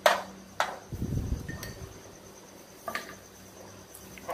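Crickets chirping steadily in the background, with a few sharp clinks of chopsticks and bowls, the loudest right at the start, and a soft low thump about a second in.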